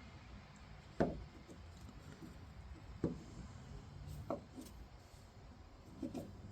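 Four separate sharp knocks, each with a short ring, spaced a second or two apart: a small steel hand vise and its parts being handled and set down on a workbench.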